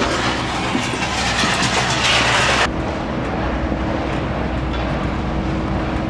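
Cabin noise inside an ATR 42-600 turboprop airliner taxiing after landing: steady engine and airframe noise with fine rattling. About halfway through it changes abruptly to a quieter, duller hum with a steady low tone.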